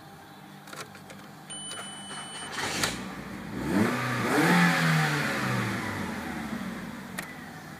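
Ford Galaxy engine revved once while standing still: from a steady idle the pitch rises quickly to about 3,000 rpm, then dies away slowly back toward idle.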